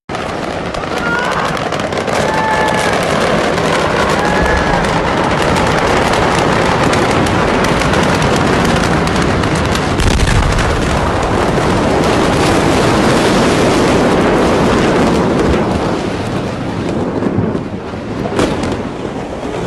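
Loud, sustained roar of the Beirut port explosion and fire, crackling with rapid sharp pops, with a heavier low boom about ten seconds in. A few faint shouts come through in the first seconds, and the noise eases somewhat near the end.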